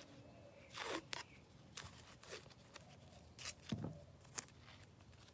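Faint handling sounds: a short rip of painter's tape pulled off its roll, then scattered soft clicks and taps of tape and cardboard tube being handled.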